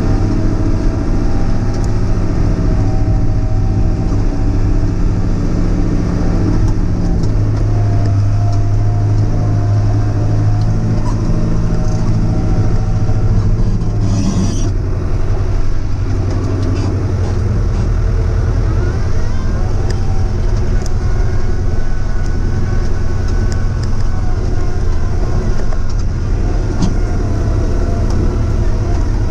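Diesel engine of a heavy-equipment machine pulling a scraper, running steadily under load and heard from inside the closed cab. Its pitch shifts a little as the load changes, with a short hiss about halfway through.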